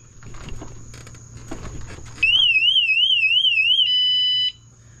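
Add-on e-bike alarm (a unit that also gives turn signals and brake lights) sounding: after some light handling noise, a loud electronic warble starts about two seconds in, wobbling about four times a second. It switches to a steady beep and cuts off suddenly about half a second before the end.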